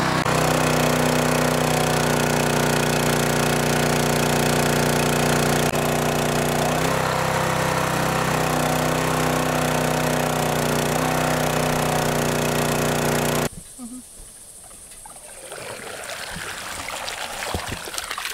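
Small engine-driven water pump running steadily while it draws pond water up a suction hose. About two-thirds of the way through, the engine sound cuts off abruptly and gives way to quieter water trickling and sloshing around the hose's intake screen in shallow pond water.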